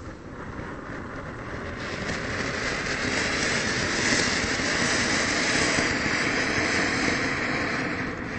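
Ground spark-fountain firework spraying sparks with a steady, loud rushing hiss. It swells over the first couple of seconds, holds, and begins to die down near the end.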